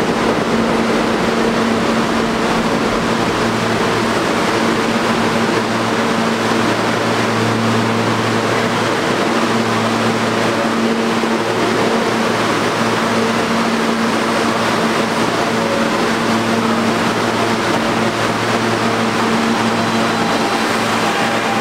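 Stationary New Technology subway train standing at the platform with its doors open: a steady rush of ventilation and auxiliary equipment over a constant low hum.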